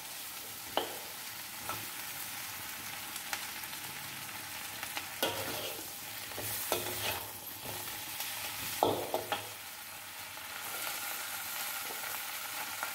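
Salted-egg-coated flower crabs being stir-fried in a stainless steel wok: a steady sizzle, with a metal spatula scraping and knocking against the wok now and then, loudest about nine seconds in.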